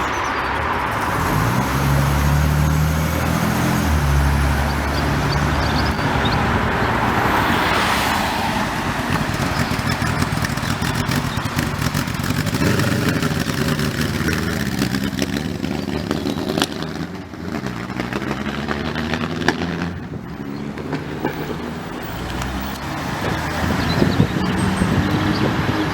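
Car engines revving and driving past over road traffic noise, with a strong deep engine note whose pitch steps about two seconds in and a few sharp pops later on.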